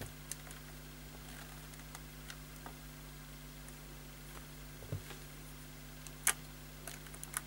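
Faint handling sounds of an opened plastic clock radio and its wiring being moved about: scattered light clicks and taps, a soft knock about five seconds in and a sharp click just after six seconds, as a small screwdriver is brought to the circuit board, over a steady low hum.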